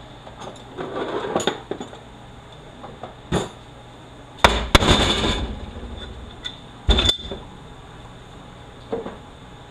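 Metal tools and transmission parts being handled during a teardown: a string of separate clanks and clinks. The loudest comes about four and a half seconds in and rings briefly, with another sharp clank about two seconds later.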